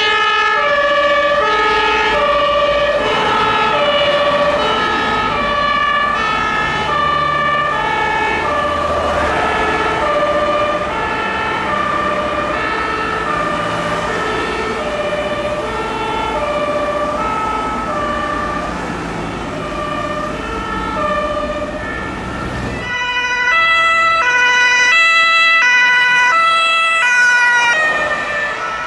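German fire-brigade two-tone sirens (Martinshorn) alternating between two pitches, with traffic engine noise beneath. About 23 seconds in, a louder, closer two-tone siren from a fire-brigade van takes over and passes by, its pitch falling slightly near the end.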